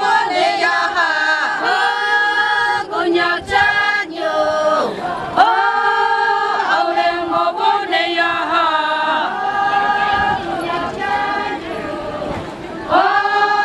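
Konyak Naga women singing a traditional festival chant in unison as a group, in short phrases of held notes about a second each.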